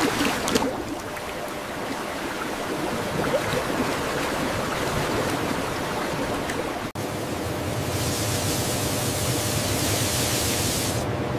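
Water gushing from a large pipe and splashing into a tank, a steady rush. It breaks off for an instant about seven seconds in, and a brighter hiss joins for the last few seconds.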